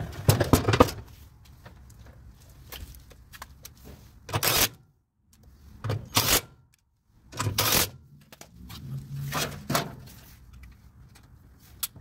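Metal clanks and scraping as a washing machine's cast-iron transmission is handled and seated back onto its mount: a rattling cluster of knocks in the first second, then four short separate bursts of knocking later on.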